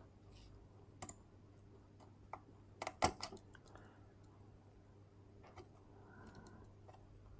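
A few scattered small clicks and taps from hand tools working a diode off a circuit board, the loudest cluster about three seconds in. A faint low hum runs underneath.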